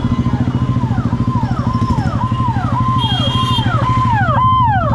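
Yamaha R15's single-cylinder engine idling with a fast, even pulse. Over it, an electronic warning tone repeats about twice a second; each tone holds and then slides down in pitch, and one near the end is a little louder.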